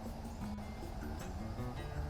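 Background music with guitar, steady held notes shifting between pitches.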